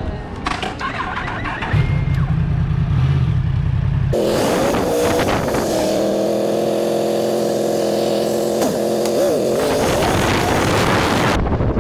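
Yamaha MT-10's 1000 cc inline-four engine, first a low rumble at idle, then from about four seconds in running at a steady, higher note with wind hiss as the bike rides along; the sound cuts off sharply near the end.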